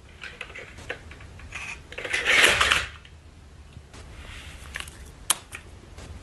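Plastic toy dinosaur clicking and clattering on a wooden floor. About two seconds in there is a loud, harsh burst of noise lasting nearly a second, and there is a single sharp click about five seconds in.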